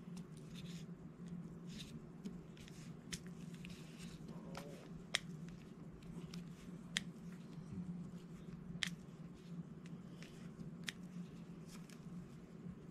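Faint small clicks and taps of diamond-painting drills being picked up and pressed onto the sticky canvas with an applicator pen, a few sharper ticks among them, over a low steady hum.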